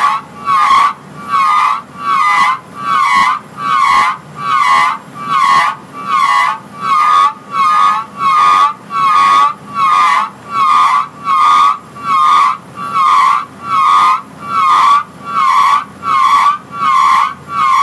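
Drilling rig drawworks brake squealing in a steady rhythm, about five pitched screeches every four seconds, each with a slight wavering in pitch.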